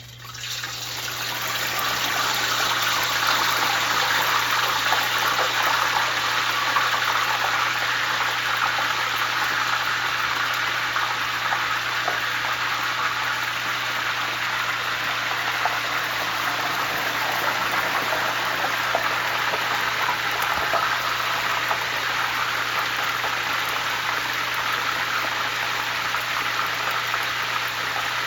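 Seasoned snapper frying in hot oil: a loud, steady sizzle that swells up over the first couple of seconds, with a steady low hum underneath.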